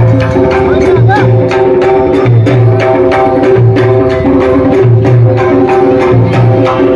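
Loud music with fast, even drum strokes, about four to five a second, over steady held tones and a low beat about once a second.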